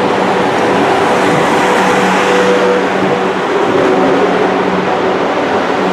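South West Trains Class 444 Desiro electric multiple unit pulling out past the platform: loud, continuous running noise of wheels on rail with a steady electric hum from its traction equipment.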